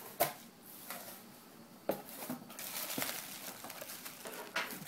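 A small cardboard box being opened by hand: its tape is cut and its flaps lifted, with a few sharp clicks and snaps and a rustle of packing plastic, busiest in the second half.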